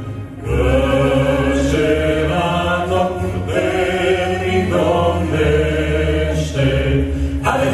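Male vocal quartet singing slow, sustained chords into microphones, with a low bass part beneath; the chord changes every second or two after a short breath about half a second in.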